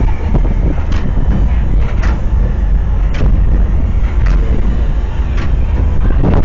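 Loud, steady low rumble of a dark ride, with a short knock about once a second.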